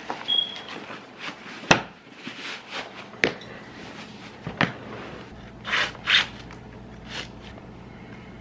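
Tan suede combat boots being pulled on and laced: a few sharp knocks of the boots against the floor, rubbing and scraping of suede and laces, and two louder swishes a little after the middle.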